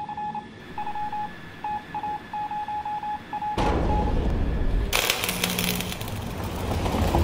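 Radio-signal sound effect: a single-pitched tone keyed on and off in short and long beeps, like Morse code. About halfway through it gives way to loud, rushing static-like noise that grows stronger a second later.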